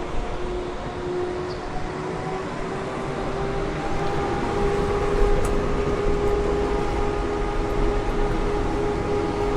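A car driving: steady road and tyre noise under a low engine hum that rises slightly in pitch over the first few seconds as the car gathers speed.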